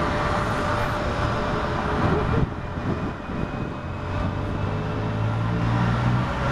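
Boeing 737 MAX 8 airliner's CFM LEAP-1B jet engines running as it moves slowly along the runway: a steady rushing noise with a faint whine. About two and a half seconds in the higher part of the noise drops away suddenly, leaving a lower, steadier hum.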